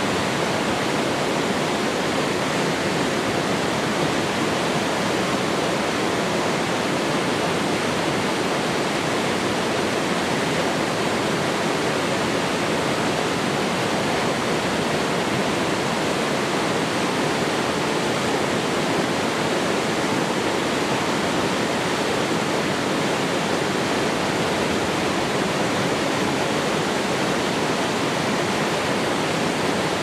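Small mountain-stream waterfall tumbling over rocks into a pool: a steady rush of white water.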